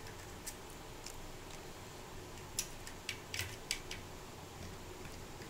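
A few faint, sharp clicks and ticks of a small screwdriver working the tight screws that hold the Fluke 101 multimeter's circuit board, most of them in a cluster past the middle, over a faint steady low hum.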